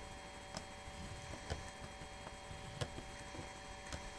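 Stylus scoring cardstock along the grooves of a scoring board: about four faint clicks and taps, roughly a second apart, as the stylus is set into the grooves and drawn down them, over a steady electrical hum.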